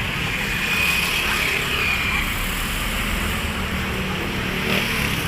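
Steady city street traffic: a continuous wash of passing vehicle engines and tyres, with a faint thin high tone for a second or so near the start.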